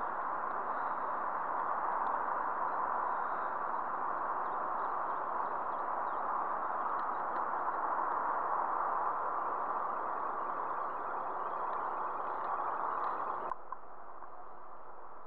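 Steady rushing noise of water flowing over a river weir. It drops abruptly to a quieter, thinner hiss near the end.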